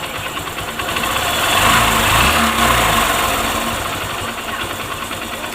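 Honda Shine motorcycle's single-cylinder four-stroke engine running at idle, revved briefly about two seconds in and falling back to idle. It runs without the intermittent timing chain rattle, now that a new tensioner is fitted.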